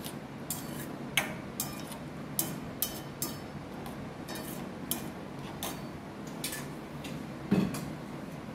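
Steel spoon stirring a thick gravy in a stainless steel pot, clinking lightly against the pot's sides every half second or so over a steady low hum. Near the end there is one heavier knock as the spoon is left resting against the pot.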